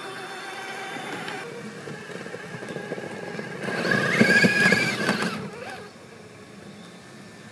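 Axial SCX6 RC crawler's electric motor and geared drivetrain whining as it crawls over rock. About four seconds in, the whine rises in pitch and gets louder for a couple of seconds while the tyres scrabble and knock on the stone under load, then it eases off and drops back to a quieter running level.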